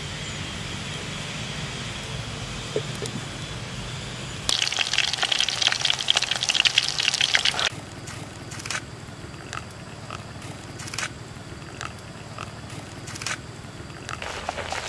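Water poured from a plastic bottle into a plastic tub of flour: a loud splashing pour of about three seconds that begins about a third of the way in, followed by scattered drips. Before the pour, a steady low background rumble.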